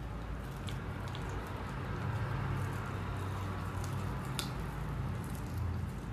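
Dachshund gnawing on a toothbrush: soft chewing with a few sharp clicks of teeth on the brush, the loudest about four seconds in, over a low steady background hum.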